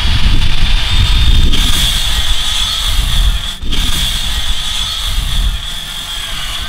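Circular saw running at full speed and cutting an angled gusset from a 2x4, a steady high motor whine over the rough noise of the cut. The sound dips briefly about halfway through, then carries on.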